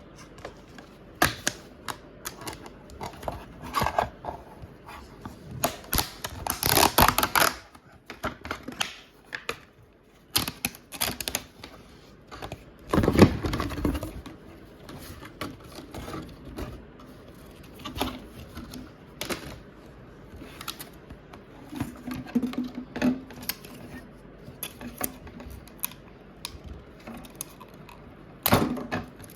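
Irregular clicks, taps and rustles of a computer mouse and its packaging being handled, with longer rustling spells about six and thirteen seconds in.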